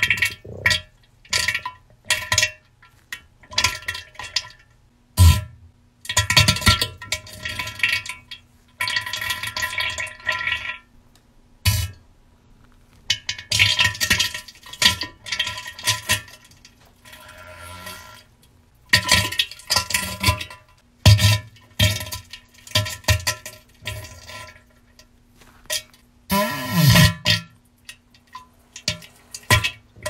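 Diarrhea sounds: a long run of wet, sputtering, splattering fart bursts, some short and some lasting a second or two, several starting with a low thump, with brief gaps between them.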